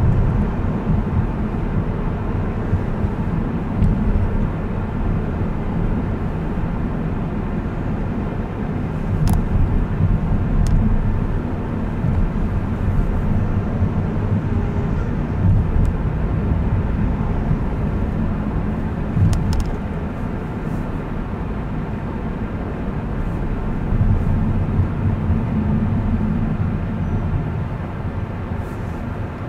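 Car driving through city traffic: a steady low rumble of engine and road noise, with a few brief faint clicks.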